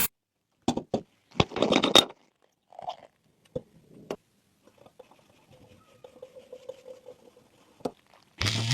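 Sharp clicks and short scrapes of small parts of a diecast toy car being handled, then a faint steady hum with light ticking.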